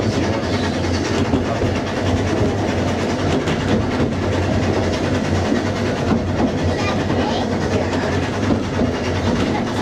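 Narrow-gauge railway carriage running along the track, heard from inside: a steady rumble of wheels on rail with light clatter.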